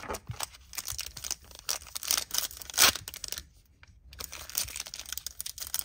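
Foil trading-card pack wrapper being torn open by hand, crackling and crinkling in fits and starts with a short pause a little past halfway. The pack does not rip cleanly.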